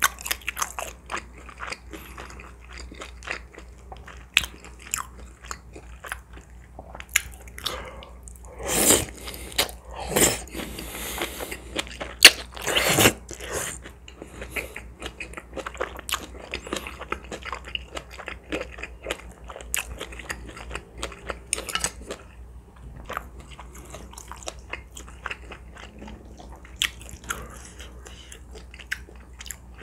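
Close-miked chewing and crunching of crispy oven-roasted pepper chicken, with a run of loud crunches from about nine to thirteen seconds in.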